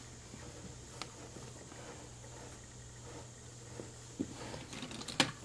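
Faint handling sounds as a tailor's L-square ruler is shifted and pressed flat on trouser fabric on a cutting table. There is a light click about a second in, a few small knocks later, and a sharper tap near the end.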